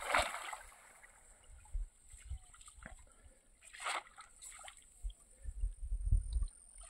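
Lake water splashing and sloshing around a man wading among tall grass, in short bursts at the start and again about four seconds in. Low rumbles of wind on the microphone come near the end.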